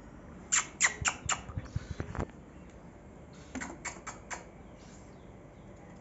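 Cockatiel giving short, sharp chirps in two quick runs of four, one about half a second in and another about three and a half seconds in, with a few soft low taps in between.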